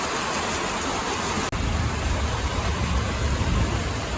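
Heavy rain falling steadily. There is a brief gap about a second and a half in, after which the rain has a deeper rumble.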